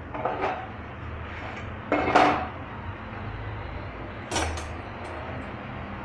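Three short clatters of metal kitchen utensils knocking against cookware and the gas stove, the loudest about two seconds in, over a steady low background hum.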